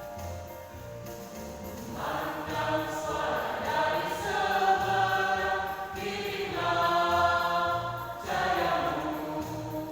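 Singing with instrumental backing: long held sung notes that swell in about two seconds in and again near the middle and the end, over a repeating bass pulse.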